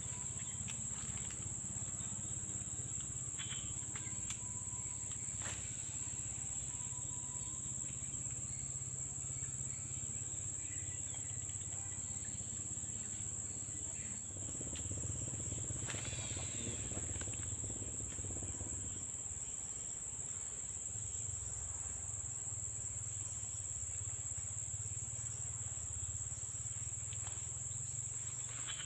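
Insects trilling in one steady, unbroken high-pitched drone, with a few faint clicks now and then.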